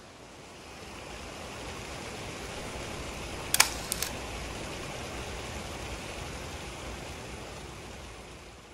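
Fountain water splashing and rushing steadily over stone ledges into a pool, fading in and out. Two sharp clicks about half a second apart come near the middle and are the loudest sounds.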